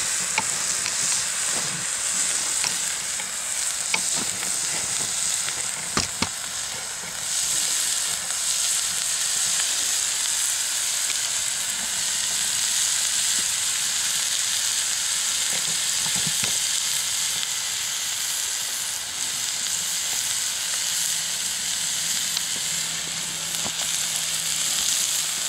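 Bacon frying in a pan over a wood fire: a steady sizzle that grows a little louder about seven seconds in, with a few sharp pops in the first six seconds.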